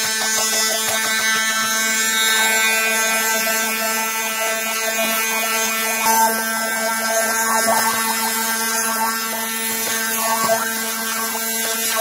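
Electric blender running at a steady speed, a constant motor whine, puréeing basil and pandan leaves with water.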